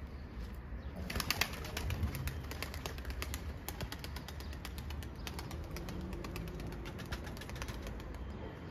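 Pigeons flapping their wings: a quick flurry of wing claps starts about a second in and thins into scattered flaps.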